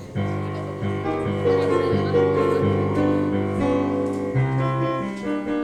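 Piano accompaniment playing a run of sustained chords.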